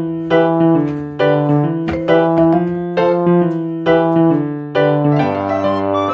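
Background piano music: a light tune of struck notes over sustained chords.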